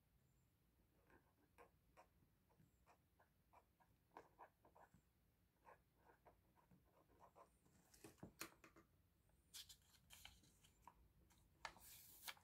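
Near silence with faint small clicks and taps of binder pages and card sleeves being handled, growing into louder crisp rustles in the last few seconds.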